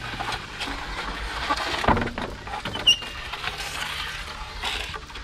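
A sludge bailer being hauled up on its line through a 160 mm plastic well casing: scraping and rustling with a few knocks against the pipe, the loudest about three seconds in.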